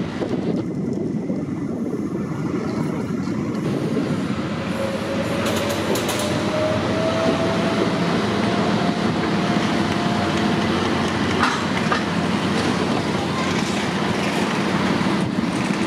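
Electric trolleybus pulling away over steady road and traffic rumble, its traction motor giving a thin whine that rises slowly in pitch for several seconds from about four seconds in. A few sharp clicks come near the middle.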